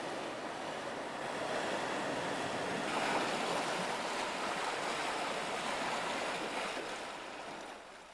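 Sea surf washing and breaking against a rocky shore, a steady rush of waves that fades out near the end.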